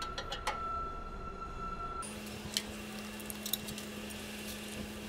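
A few faint, scattered metallic clicks of bolts and nuts being handled and hand-started on a transmission mount bracket and cross member, over a steady shop hum. The hum changes abruptly to a lower pitch about two seconds in.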